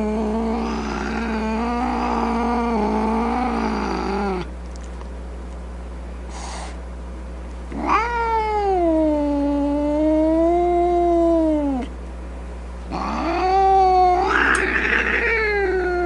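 A cat yowling: three long, drawn-out calls of several seconds each, the pitch wavering up and down, with short pauses between them.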